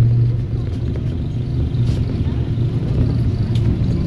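Steady low hum and rumble inside a SVARZ 6235 trolleybus on the move, with a faint click now and then.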